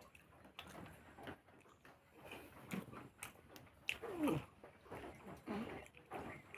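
A person chewing and eating a meal close to the microphone, with irregular wet mouth smacks and clicks. There are a couple of short voiced sounds, the loudest about four seconds in.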